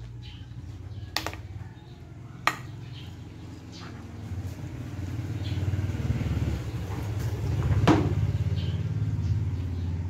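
A metal serving spoon clinks sharply against a glass baking dish three times while spaghetti is mixed into sauce. Under it runs a steady low engine-like rumble that grows louder from about four seconds in.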